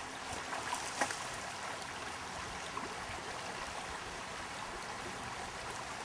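Shallow river rushing steadily over a riffle, with a few short splashes in the first second.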